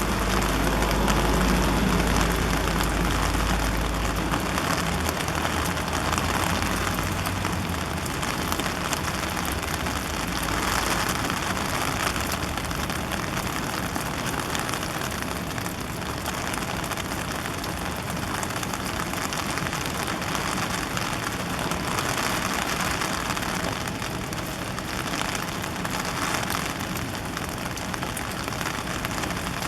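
Heavy rain pouring down steadily, with a low rumble in the first few seconds that fades out.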